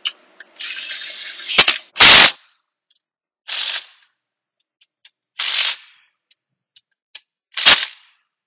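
Impact wrench hammering transmission cover bolts down in a series of short bursts, about five in all, the loudest about two seconds in, with light clicks of the socket being moved between bolts.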